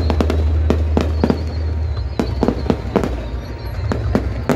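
Aerial fireworks bursting in a rapid, irregular run of sharp bangs, about three a second, over a steady low rumble.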